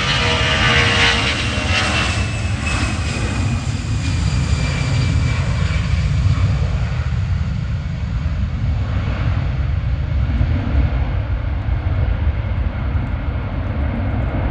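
Airbus A319's twin jet engines at takeoff thrust during the takeoff roll: a steady, loud rumble, with an engine whine in the first few seconds that slides slightly down in pitch as the aircraft passes.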